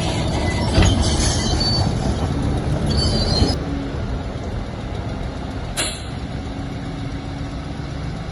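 Crawler bulldozer working: its diesel engine runs under a steady din, with metallic squeals from the tracks that stop abruptly about three and a half seconds in. A single sharp clank comes near six seconds.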